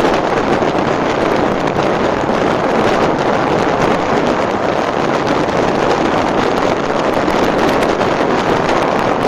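Wind rushing over the microphone of a moving motorcycle, a loud steady buffeting with road and engine noise beneath it.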